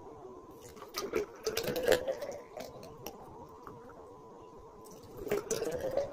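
Thick milkshake poured from a stainless-steel mixer jar into glass bottles, in two spells, about a second in and again near the end, with light clicks and knocks of the jar on the bottles.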